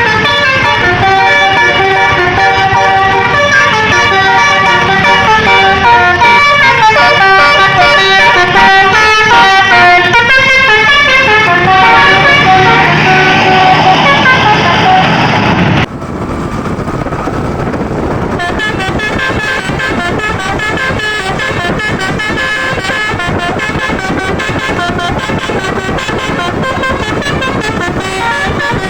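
A bus's multi-tone telolet basuri horn plays a fast tune of rapidly changing notes. About 16 seconds in it cuts off abruptly, and the horn tones go on more quietly over road and engine noise.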